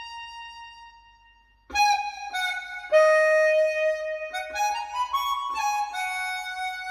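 Music: a solo melody of long held notes. One note fades away, and about two seconds in a new phrase starts, its notes stepping up and down in pitch.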